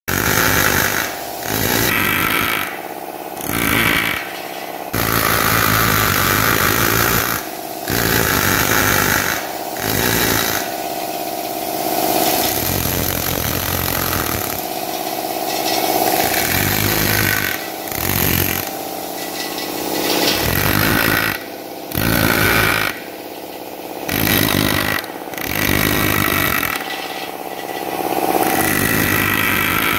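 Pneumatic carving hammer driving a chisel bit into stone, buzzing in bursts of a second or two with short drops in level between them as the carver starts and stops.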